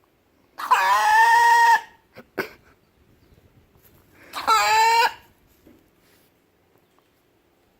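A chicken calls loudly twice, each call drawn out for about a second, with two quick sharp sounds between the calls.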